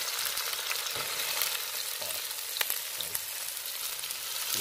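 Chopped okra, onion, peppers and tomato sizzling steadily in very hot coconut oil, with a few sharp pops.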